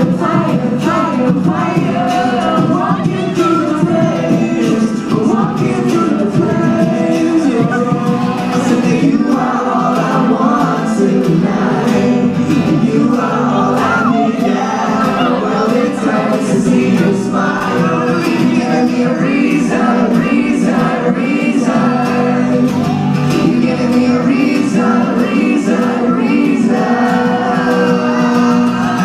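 Live pop band playing a song with sung vocals.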